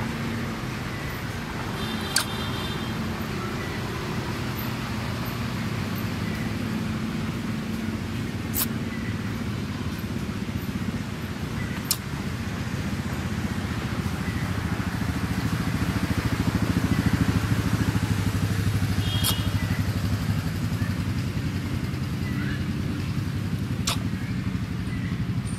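A motor engine running steadily, a low drone that swells a little past the middle. A few sharp clicks and two short high chirps sound over it.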